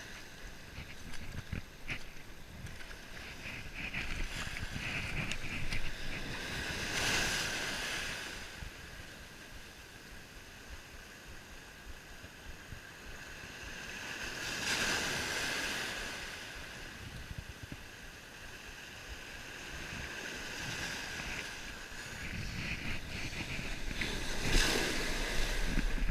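Sea waves breaking and washing up on a beach, swelling three times about eight seconds apart, with wind rumbling on the microphone.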